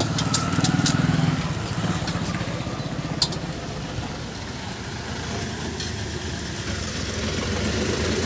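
A motor vehicle's engine running close by, loudest in the first two seconds and then lower, over steady street noise, with a few sharp clicks near the start and one more about three seconds in.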